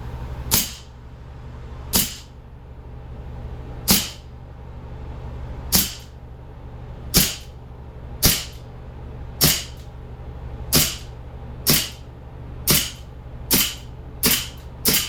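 1911 Springfield replica CO2 pistol firing, about thirteen sharp pops: a second and a half to two seconds apart at first, coming faster, under a second apart, near the end.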